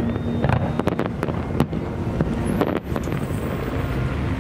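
Fireworks going off: a quick run of sharp bangs in the first three seconds over a steady low rumble.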